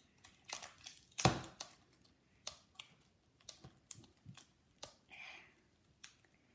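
Plastic wrappers crinkling and crackling as they are peeled off toy cake pops, in irregular sharp clicks and rustles with a longer rustle about five seconds in.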